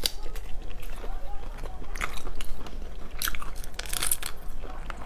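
Close-up eating sounds of a spicy mantis shrimp being bitten and chewed: wet chewing with a few sharp crunches of shell, about two, three and four seconds in.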